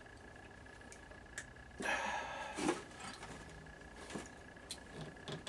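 Small metal clicks and handling of hand tools and parts while a set screw is fitted into a drill press pulley, with a brief scraping rattle about two seconds in.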